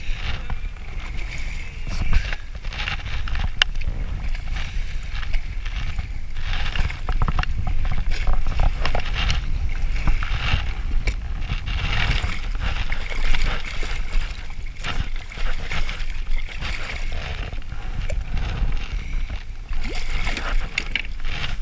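Wind rumbling on the microphone and water sloshing against a kayak hull, with scattered clicks and knocks of rod and spinning reel handling as a hooked striped bass is reeled in.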